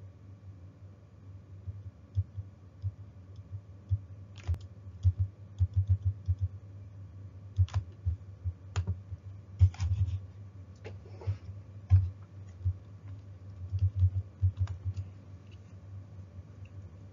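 Typing on a computer keyboard: irregular keystrokes in short runs with pauses between them, each landing as a dull tap.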